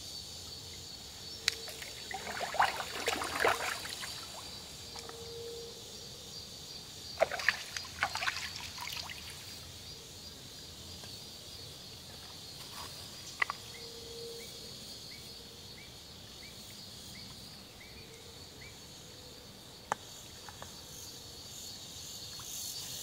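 Close rustling and scraping handling noises in two short spells of a couple of seconds each, with a few sharp clicks, over a steady high drone of insects.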